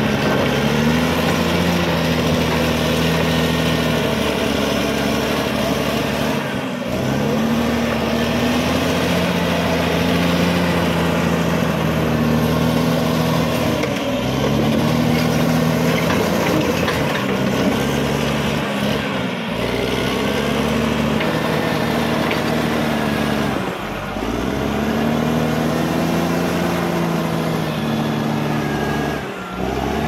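Caterpillar D6R XL bulldozer's diesel engine working under load while pushing rocky soil. The engine note repeatedly rises and sinks, every five seconds or so, with a few brief drops in level.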